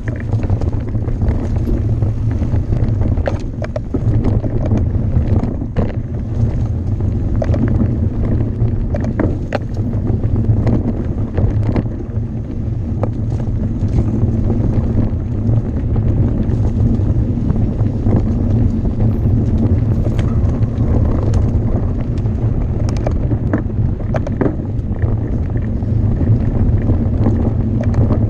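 Mountain bike descending a rough trail at speed: wind rushing over the microphone and a steady low rumble from the tyres, with frequent sharp rattles and knocks from the bike over the terrain.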